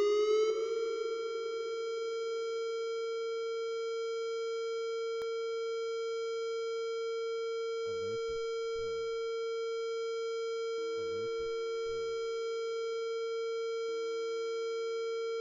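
Whelen electronic tornado siren sounding its alert tone: one steady tone that slides up in pitch at the start, then holds at a constant pitch.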